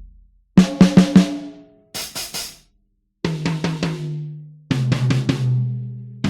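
Sampled acoustic drum kit from the EZdrummer 3 Custom Shop library, playing short separate phrases with silent gaps between them. There are four quick hits about half a second in, a short bright snare-like burst near two seconds, then two tom groups, each pitched lower than the one before.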